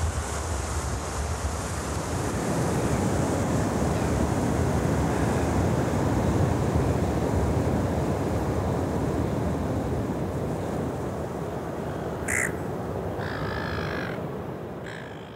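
Wind and surf on an open shore, a steady rushing noise with wind rumbling on the microphone. Near the end, gulls give a few short calls, and then the sound fades out.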